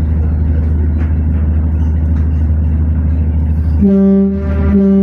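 A steady low engine drone, with a deep horn sounding two blasts near the end: a longer one, then a shorter one.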